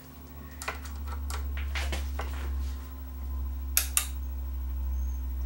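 Steady low electrical hum from the powered-up plasma TV on the bench, with scattered light clicks and two sharp clicks close together about four seconds in.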